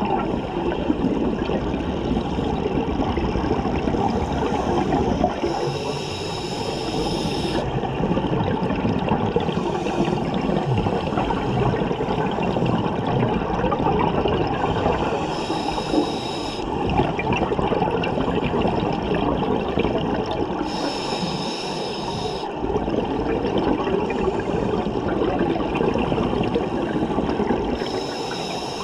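Underwater scuba breathing through a regulator: a hissing inhale about every five to six seconds, with rumbling, gurgling exhaled bubbles in between.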